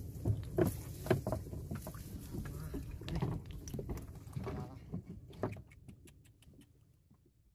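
Dense reed stalks rustling and crackling with irregular knocks as a person pushes through them, then a run of light clicks, fading out near the end.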